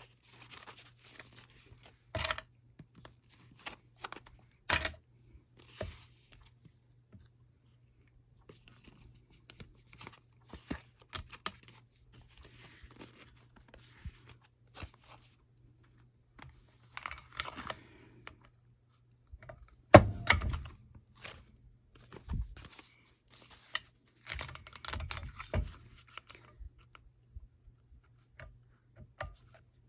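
Sheets of paper being handled and shifted on a work surface: scattered rustles and light clicks, with a few sharp knocks, the loudest about two-thirds of the way through.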